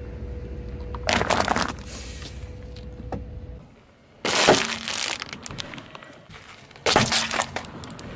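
Car tyre rolling over and crushing objects on asphalt, three crunches in all. Paper cups crumple with a crackling crunch about a second in. A sealed snack bag bursts with a sharp pop and crackle about four seconds in. A plastic dessert cup cracks under the tyre near seven seconds. A low rumble runs underneath.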